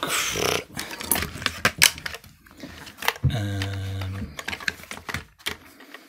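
Clicks, knocks and light clatter of hard plastic dishwasher pump parts and multimeter probe leads being handled on a table, with a drawn-out vocal 'erm' for about a second midway.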